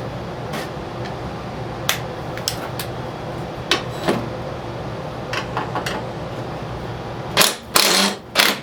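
Hand tools working on the rusted nuts of a Toro snowblower's covers: scattered metallic clicks and taps over a steady background hum, then several loud rasping bursts near the end.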